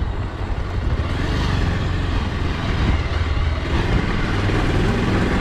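Bajaj Pulsar motorcycle's single-cylinder engine running at low speed, heard from the rider's seat as a steady low rumble.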